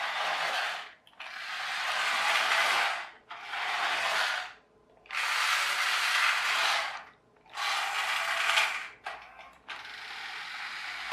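A toy remote-control car's small electric motor and plastic gearbox whirring and grinding in about six bursts of one to two seconds, stopping and starting as the remote is pressed. Only one wheel drives.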